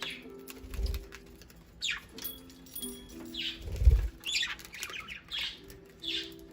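Budgerigars chirping and squawking in short, sharp calls while squabbling over a rice cracker, with two low thumps, one about a second in and one near four seconds. Soft background music plays underneath.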